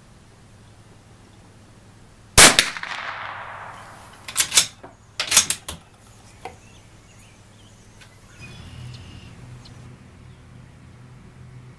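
A single .22 LR shot from a Bergara B14R bolt-action rifle, a sharp crack with a fading echo, followed a couple of seconds later by two quick clusters of metallic clicks as the bolt is worked to eject the spent case and chamber the next round, and a small click after.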